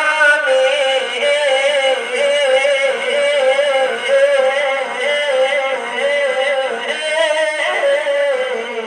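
Wordless sung vocal line of an Urdu naat, a single melody with wavering, gliding pitch and reverb, carried without clear words between two sung verses.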